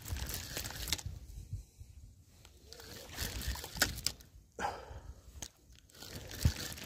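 Jacket sleeve rubbing and brushing against the camera's microphone, an irregular rustling with scattered knocks and clicks from handling the fishing rod.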